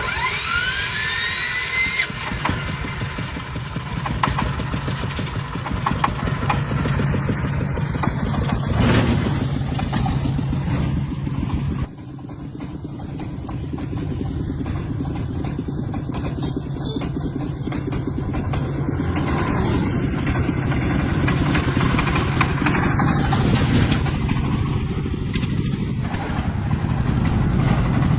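Tractor engine running steadily, with a rising whine over the first two seconds as it starts. About twelve seconds in the sound drops suddenly, then builds back up.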